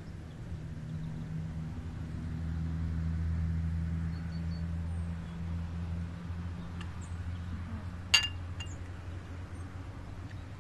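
A low steady hum that swells in the middle and eases off, with one sharp clink about eight seconds in.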